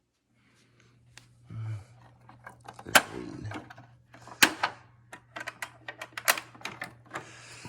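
Sharp clicks, knocks and light rattling of a Sanitaire S675 upright vacuum being handled and opened up while switched off, as it is checked for a blockage, with a faint low hum underneath.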